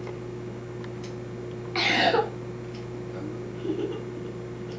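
A single short cough, about two seconds in, over a steady electrical hum.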